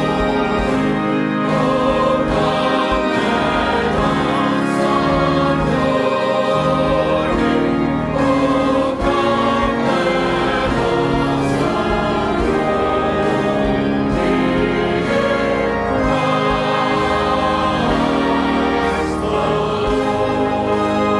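A group of voices singing a worship song with instrumental accompaniment, held notes and a steady level throughout.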